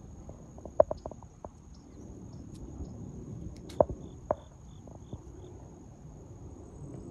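A steady high-pitched insect trill, like crickets, with a short run of evenly spaced chirps in the middle. A few sharp light clicks and knocks stand out, the loudest about a second in and near the middle.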